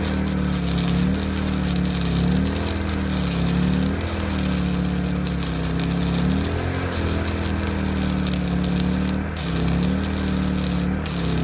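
Electric arc welding of rebar onto steel anchor bolts: the arc crackles and sizzles steadily. Under it runs a low hum that dips in pitch every couple of seconds.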